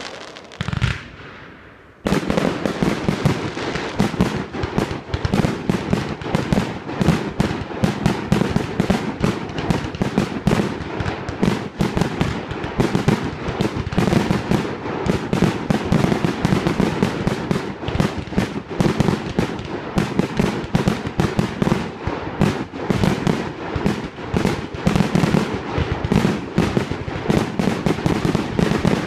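Aerial fireworks bursting: after a short lull with a single bang, a rapid, unbroken barrage of bangs and crackles starts about two seconds in.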